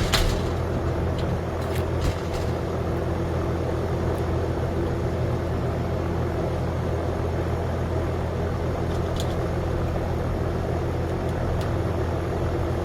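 Steady low hum of a running motor, with a few short, light clicks near the start and again about nine seconds in.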